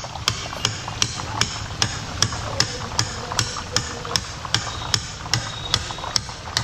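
Metal ladle tapping in a steady rhythm, about two and a half sharp taps a second, as it knocks gram-flour batter through a perforated boondi ladle. Under the taps runs the steady sizzle of batter drops frying in a kadai of hot oil.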